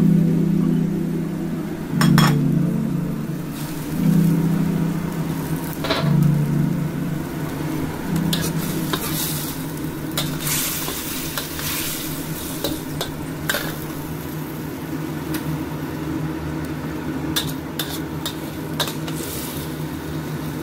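Chinese kale (kailan) stir-frying in a steel wok, sizzling, with a metal utensil scraping and clinking against the pan now and then. A low hum runs underneath, loudest in the first several seconds and swelling about every two seconds.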